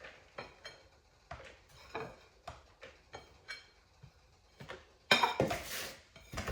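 Kitchen dishes and utensils being handled: a string of light clinks and knocks, then a louder, longer clatter about five seconds in.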